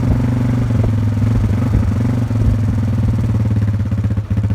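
Old Yamaha Wolverine ATV's single-cylinder four-stroke engine idling just after starting, with a short dip near the end. It is running unevenly enough that the rider reckons the choke might help.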